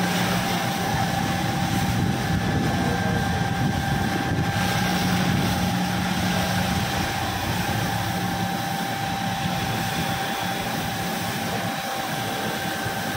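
Fire engine running its water pump, a steady engine hum under the continuous rushing hiss of the high-pressure hose jet.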